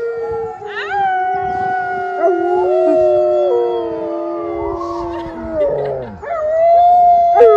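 A wolfdog howling in long drawn-out howls that step up and down in pitch, with a second howling voice overlapping at a different pitch. There is a short break past the middle, then a fresh howl rises and is the loudest near the end.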